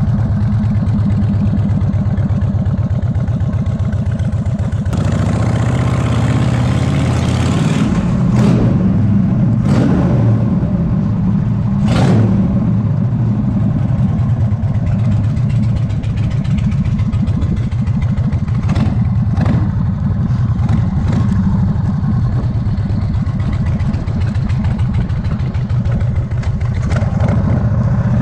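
Chopper motorcycle engine running steadily at road speed, heard from the saddle. About five seconds in a louder rushing noise builds for a few seconds, and a handful of short sharp cracks come through over the middle of the ride.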